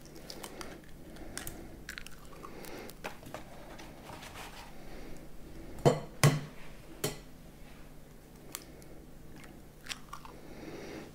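Eggs being cracked and broken open by hand over a glass bowl: small crackles of shell throughout, and a few sharp knocks about six to seven seconds in.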